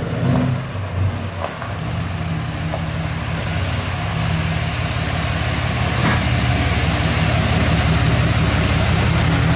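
Engine running at a steady idle, with a few faint clicks.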